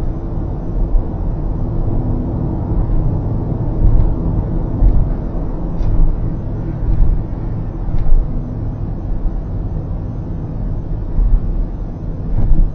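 Steady car road noise heard from inside the cabin while driving at expressway speed: a continuous low rumble of tyres and engine, with a few faint clicks.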